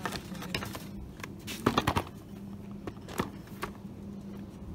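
Scattered knocks and rattles of goods and wire bins being handled, with a burst of louder ones about a second and a half in, over a steady low store hum.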